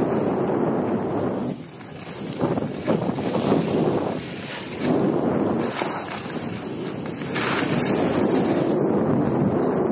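Wind rushing over the microphone of a moving skier's camera, with skis scraping over packed snow on a downhill run. The rushing swells and dips several times.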